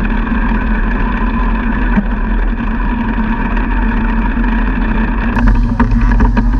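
Wingless sprint car's V8 engine running at a steady speed, without rising or falling revs. About five seconds in, rattling clicks and a brighter hiss join it.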